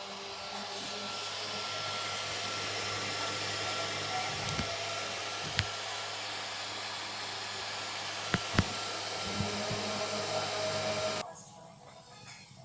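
Flashforge Creator Pro 3D printer running, with a steady whirr of fans and a low hum, a few sharp clicks, and the noise cutting off suddenly about eleven seconds in.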